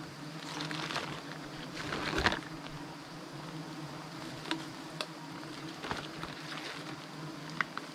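A swarm of giant honey bees buzzing steadily around their open comb. Rustling and a few sharp knocks from handling cut through the hum, the loudest about two seconds in.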